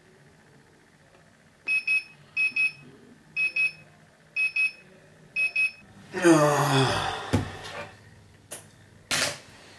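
Wake-up light alarm clock beeping in quick pairs, five double beeps about a second apart. Then a drawn-out groan falling in pitch as the sleeper wakes, followed by a couple of clicks and a rustle as a hand reaches for the clock.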